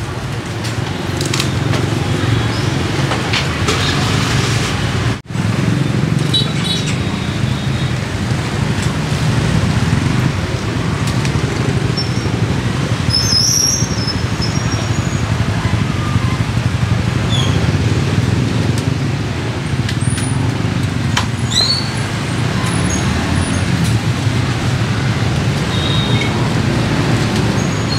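Busy street traffic with motorbikes: a steady low rumble of engines and tyres, with a few short high chirps scattered through it.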